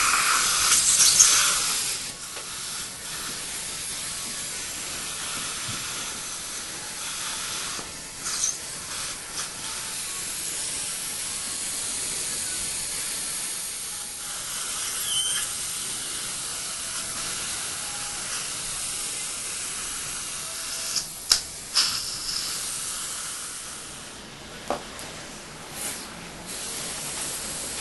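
Dental surgical suction hissing steadily, louder for the first couple of seconds. A few short sharp clicks and knocks are scattered through, several of them about three quarters of the way in.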